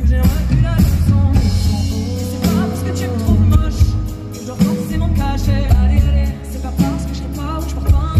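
Live band playing loud pop-rock: drum kit, electric guitar and keyboard over a heavy bass line, with a woman singing the melody.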